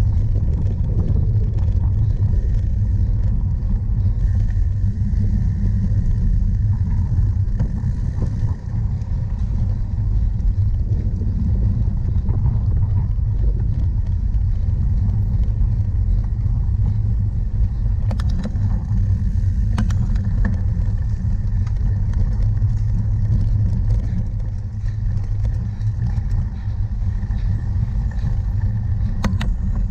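Steady low rumble of wind buffeting and riding vibration on a camera carried on a cyclocross bike, with a few sharp clicks and knocks in the second half.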